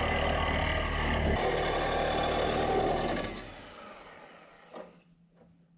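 Reciprocating saw cutting through the rusty sheet steel of an old Datsun truck's cab. It runs steadily, then stops a little after three seconds in and winds down. A faint tap follows near the end.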